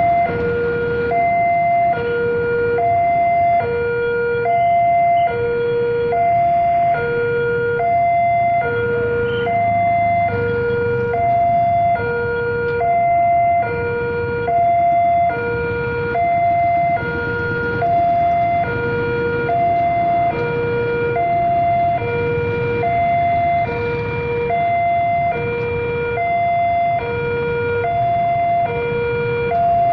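Railroad level crossing warning alarm sounding its electronic two-tone signal. A lower and a higher tone alternate steadily, each a little under a second long. It is the signal that a train is approaching and the crossing is closed.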